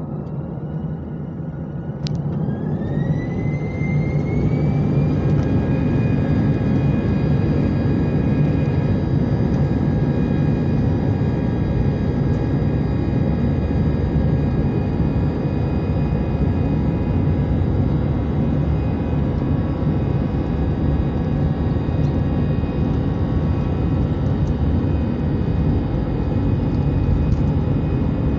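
Airbus A319 jet engines spooling up to takeoff thrust, heard from inside the cabin. A whine rises over about three seconds, then the engines run steadily at full power, a constant whine over a heavy low rumble, through the takeoff roll.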